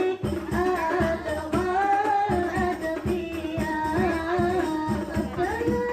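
Music: a voice singing a wavering melody over a steady hand-drum beat.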